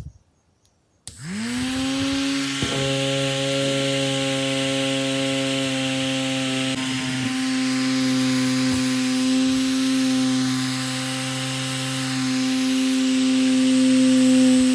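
Small recycled DC motor of a homemade toy helicopter switching on about a second in, spinning up with a quickly rising whine and then running steadily with its propeller.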